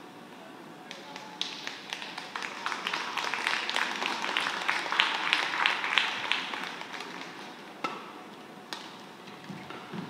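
Scattered clapping from a few spectators after a point, swelling over a few seconds and then dying away, followed by a couple of single taps.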